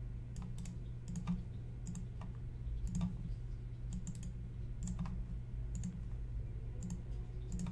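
Scattered computer keyboard and mouse clicks, irregular and one or two a second, over a steady low hum.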